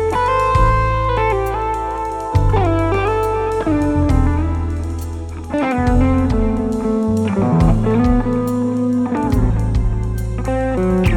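Live band playing an instrumental passage: an electric guitar lead with sliding notes over bass guitar and drums.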